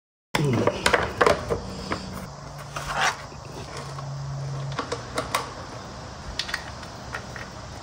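Sharp metallic clinks and knocks as a dirt bike's skid plate and its bolts are handled and fitted under the engine. They come thickest in the first second or two, then recur every second or so, over a low steady hum.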